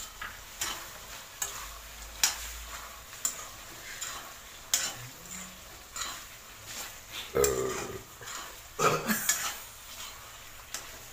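A metal spoon stirring thick chicken gravy in a metal kadai, clinking and scraping against the pan with sharp clinks about once a second and two longer, louder scrapes in the second half. Under it the hot gravy sizzles.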